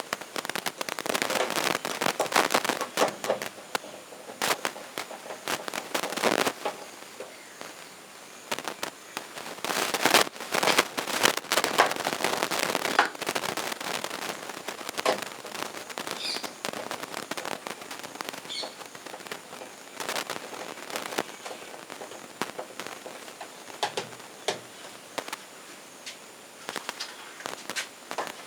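Hand work while fastening a washing-machine controller in place: dense runs of sharp clicks and rattles from screws being driven and plastic parts handled, busiest in the first several seconds and again about ten to thirteen seconds in, then scattered clicks.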